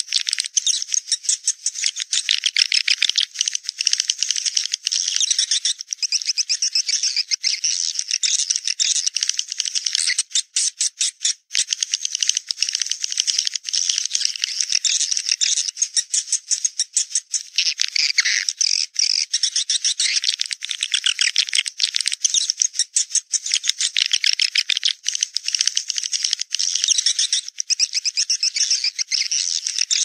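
Swiftlet lure call: a continuous high-pitched twittering chatter made of very rapid clicks, played back to draw swiftlets to a nesting house.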